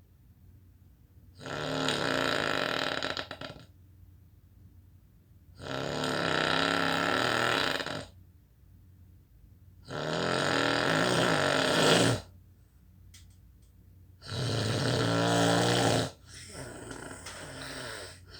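A person snoring loudly: four long snores, each lasting about two seconds and coming about every four seconds.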